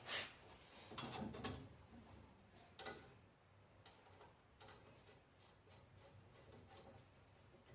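Sparse metal clicks and taps of hand tools being handled on the truck's rear axle: a sharp click at the start, a few more in the first three seconds, then faint light ticking.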